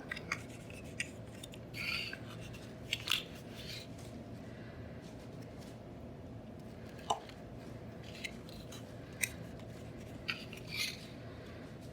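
Paper being handled and pressed by hand: scattered small taps and a few brief rustles as paper panels are glued onto a folded paper strip.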